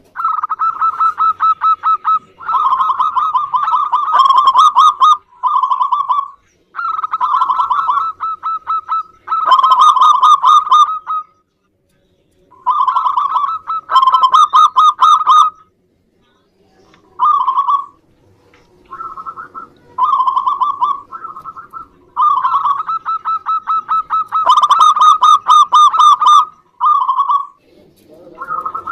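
Zebra dove (perkutut) calling in phrases of rapid, stuttering cooing notes. The phrases are repeated about a dozen times with short pauses between them.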